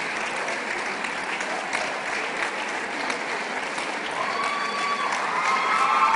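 Audience applauding, with a few cries rising over the clapping from about four seconds in.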